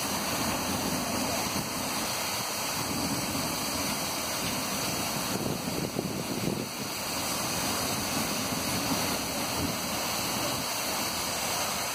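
Fire hose nozzles spraying water: a steady rushing hiss.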